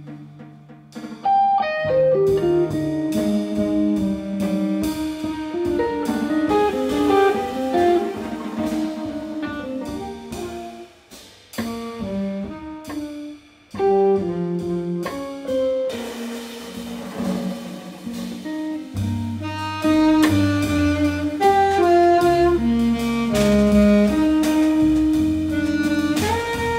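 Live jazz quartet: a Fender Telecaster electric guitar picks a fast single-note line over double bass and drums, with saxophone also in the mix. The line breaks off briefly twice near the middle, and the bass and drums come in stronger about two-thirds of the way through.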